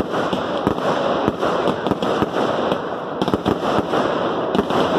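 Fireworks display: a rapid, irregular run of sharp bangs and crackles from bursting aerial shells over a continuous rushing hiss from sparking fountains.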